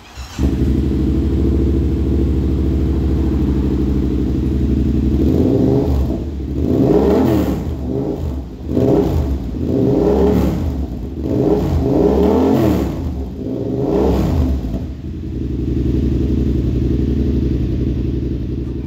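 Yamaha XSR700's 689 cc CP2 parallel-twin engine running through a Kelpi CP2 aftermarket exhaust with the baffle in. It idles, is blipped about five times in quick succession, and settles back to idle.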